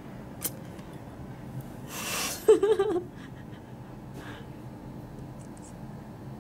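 A single sharp click about half a second in, then a breathy exhale and a short wavering hum or murmur from a person about two and a half seconds in, which is the loudest sound.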